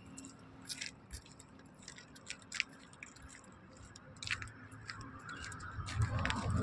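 A lull in highway traffic: scattered short clicks and ticks over a faint background, then the low rumble of an approaching vehicle growing louder near the end.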